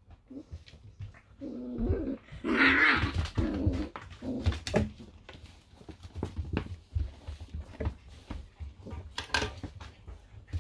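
English Springer Spaniel puppies play-growling at each other, loudest about two seconds in. Their paws tap and scrabble on the metal chequer-plate floor in quick clicks and knocks throughout.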